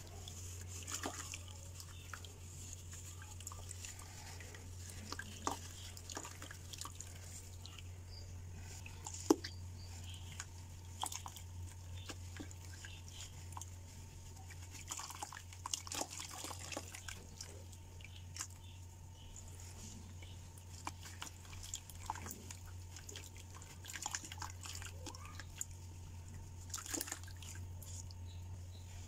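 Wet sand crumbling from a clump squeezed in the hands and falling into a plastic bucket of water, with scattered small clicks, crackles and splashes; one sharper click comes about nine seconds in. A steady low hum runs beneath.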